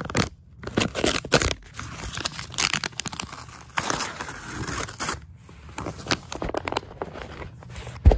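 Plastic packaging crinkling and rustling in the hands close to the microphone, with irregular crackles throughout. A heavy thump comes near the end.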